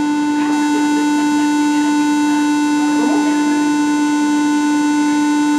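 Door-closing warning buzzer of an Alstom NS-93 metro train: one steady, loud buzzing tone, signalling that the doors are closing.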